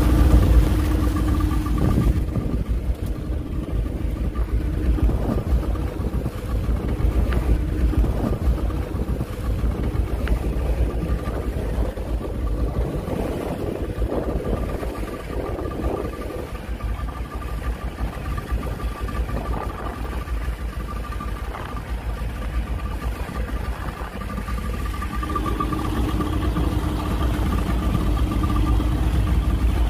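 Fishing boat's engine running steadily, a constant low rumble with a steady hum, under the rush of water and wind.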